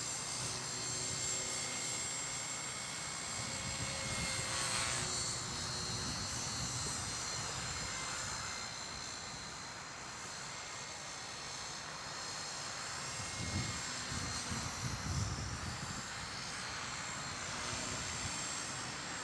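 Align T-REX 250 electric RC helicopter in flight: a steady high whine from its motor and spinning rotors, with a brief change of pitch a little under five seconds in. A short low rumble comes around fourteen seconds.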